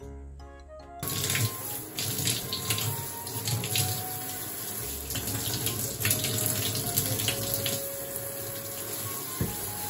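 Handheld shower head spraying a steady stream of water into a bathtub, the hiss of the spray starting about a second in.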